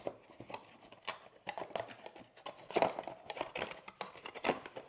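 Hands handling a small cardboard box and its folded cardboard insert: irregular rustling, scraping and light knocks of cardboard, with the crinkle of a small plastic bag being pulled out from inside.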